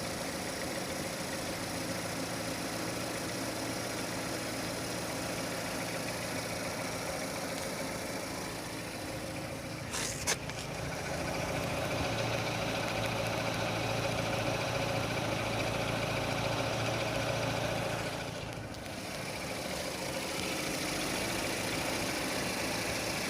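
Renault Scenic II's K4M 1.6-litre four-cylinder petrol engine idling steadily, with a knock that the owner hears coming from underneath and growing as the engine warms up. A short sharp click sounds about ten seconds in.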